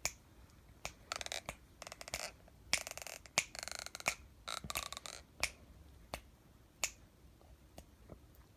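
Scattered sharp clicks and short rapid rattles, unevenly spaced, with the longest rattle about three to four seconds in.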